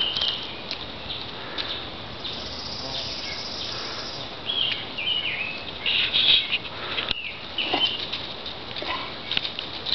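Small birds chirping in short, falling notes repeated several times, over rustling and snapping of dry leaves and twigs as goats move through the brush. A steady high hiss, like an insect buzz, runs for about two seconds early on.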